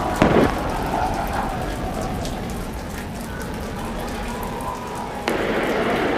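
The SpaceX Super Heavy booster's 33 Raptor engines running in a roar with a dense crackle as it climbs after liftoff. There is a brief louder burst with falling pitch just after the start, and the level jumps up about five seconds in.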